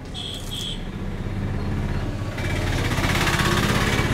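A motor vehicle engine running, growing louder over the first few seconds, with a broad hissing rush joining in a little past halfway. Two short high beeps sound near the start.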